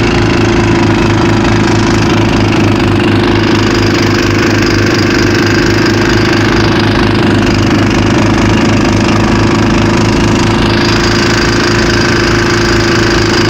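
Honda snowblower engine running steadily and loudly while throwing snow.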